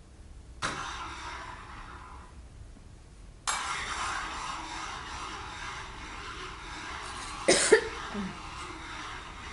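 Hands rubbing across a tabletop as a percussion sound: a hissing rub starts suddenly about half a second in and fades, then starts again about three and a half seconds in and keeps going. A short, loud cough-like burst comes near the end.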